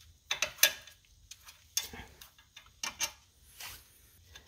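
Scattered sharp metallic clicks and clinks, several close together in the first second and a few more spread out after: small nuts and a wrench being handled while unbolting an upper ball joint from a steel control arm.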